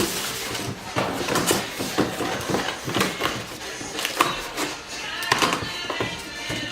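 Irregular knocks, clicks and rustles of cardboard and plastic packaging being handled while a projector and its accessories are unpacked.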